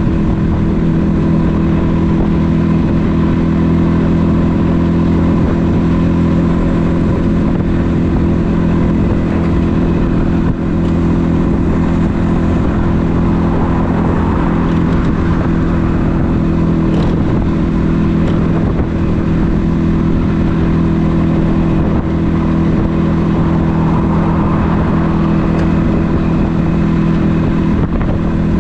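1976 Yamaha RD400's two-stroke parallel-twin engine running at a steady cruise, heard from the rider's seat, its pitch holding even throughout.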